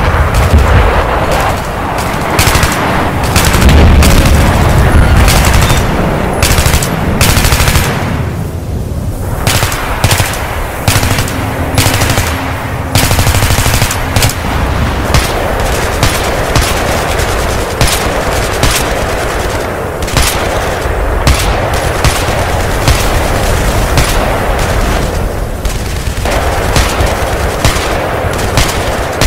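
Sustained gunfire: machine-gun bursts and rapid shots packed closely together, with low booms under them in the first few seconds.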